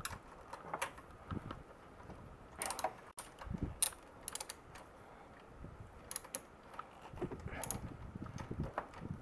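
Hand tools clicking and clinking on metal parts during work on a motorcycle, a scattered run of sharp clicks at irregular intervals.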